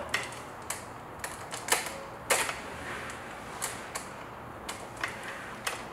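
Steel links of a diamond concrete-cutting saw chain clicking and clinking irregularly against the guide bar as the chain is worked around the bar's nose.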